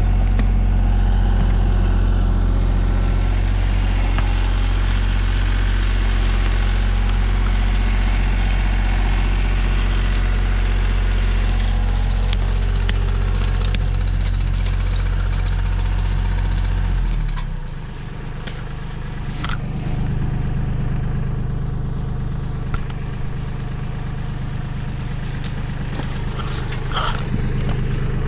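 Bobcat compact tractor's diesel engine running steadily at close range. About two-thirds of the way through, its note changes and drops a little in level. Scattered light clicks can be heard over the middle stretch.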